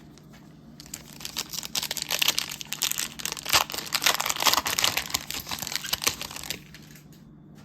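Plastic wrapper of a Donruss Elite football card pack being torn open and crinkled. The crackling starts about a second in and stops about a second before the end.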